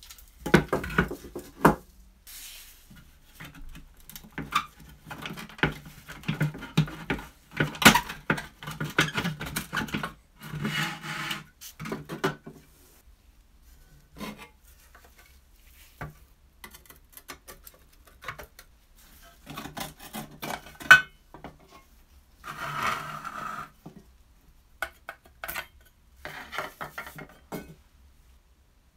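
Rusty metal and plastic parts of a Tonka toy cement mixer being handled on a wooden tabletop: irregular clatter, scraping and knocks of metal against metal and wood, in bursts with short pauses. Two sharp knocks stand out, about 8 and 21 seconds in.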